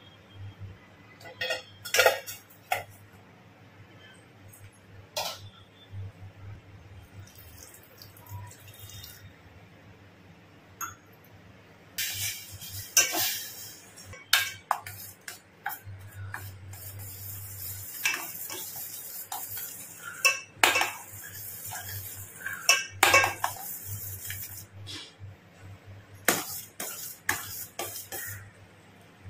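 Metal spoon clinking and scraping against the inside of a stainless steel pot while stirring jaggery melting into a syrup, in irregular bursts of sharp clinks. A steady hiss runs through the middle stretch.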